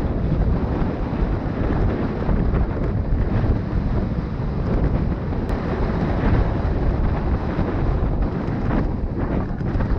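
Wind buffeting the microphone of a camera on a moving road bike: a loud, steady, low rumble with a hiss over it.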